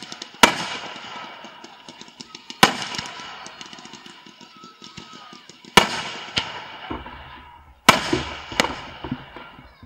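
Fireworks display firing fans of white comets and small shells: four loud bangs a couple of seconds apart, each followed by a crackling hiss that dies away.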